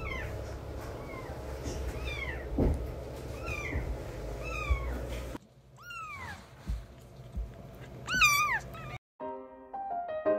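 Very young bottle-fed kittens mewing: thin, high cries that rise and fall, about one a second, over a low steady room background. After a cut come two louder mews, the second the loudest of all, and then a piano tune begins near the end.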